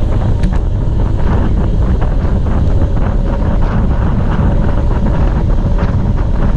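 Wind buffeting the microphone of a camera on a road bicycle riding at speed: a loud, steady low rumble with a few light clicks through it.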